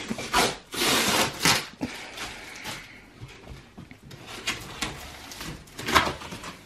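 Packing tape on a cardboard box being slit with a knife and torn off, then cardboard flaps scraping and rustling as the box is opened. Several short tearing, scraping bursts, the loudest and longest about a second in.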